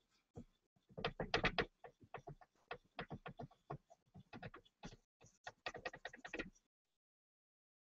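Irregular light clicks and taps of fingers and a polishing cloth working against a glazed ceramic bowl while polishing the metal of a kintsugi repair. The clicks come in dense clusters about a second in and again near the end, then stop.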